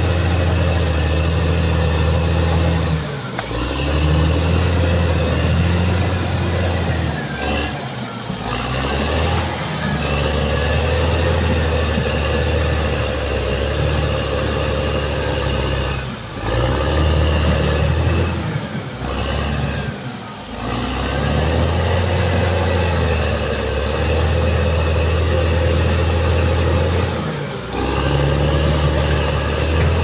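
Caterpillar D6R XL bulldozer's diesel engine running steadily under load, with a high whine above it. The engine note drops off briefly about five times, and the whine bends down and back up with each drop.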